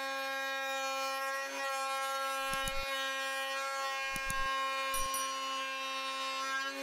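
Table-mounted router spinning a flush trim bit with a steady high whine as it trims two clamped plywood pieces to match each other, with a few short low thumps as the wood is worked along the bit.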